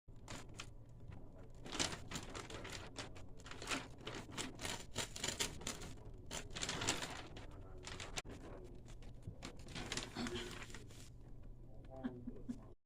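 Wrapping paper crinkling and rustling in irregular bursts of crackles, with some tearing sounds.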